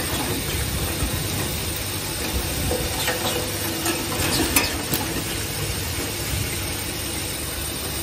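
Steady running noise and hiss of automatic assembly machinery, with a few sharp clicks about three and four and a half seconds in.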